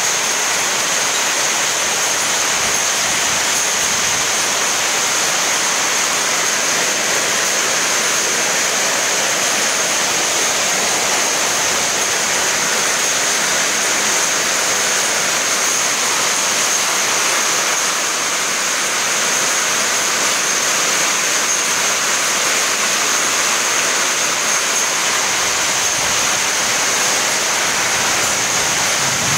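Heavy thunderstorm rain pouring down hard and steady, a loud unbroken hiss of downpour on paving and running water.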